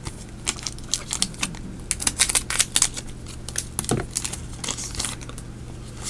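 Foil wrapper of a Japanese Pokémon card booster pack crinkling and tearing as it is opened by hand, a run of sharp irregular crackles that is densest in the middle.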